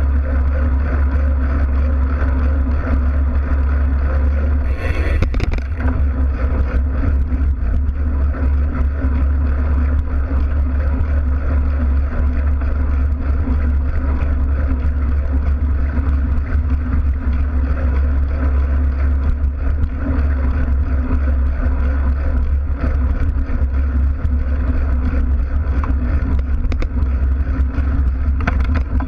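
Mountain bike riding at speed, heard through a wheel-mounted action camera's housing: a steady low rumble of the knobby tyres rolling on the road, with the frame's vibration and wind on the case. There is a brief knock about five seconds in.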